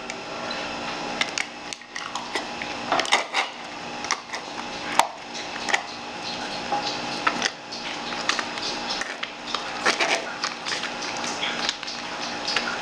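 Small cardboard carton of cream being squeezed, bent and scraped empty over a glass dish: irregular crinkling, crackling and clicking of the carton, over a faint steady hum.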